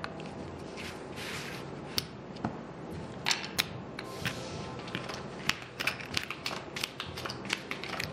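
Casino chips clacking together and playing cards being swept up and dealt onto the felt of a blackjack table: scattered sharp clicks with a few soft swishes, the clicks coming faster in the second half.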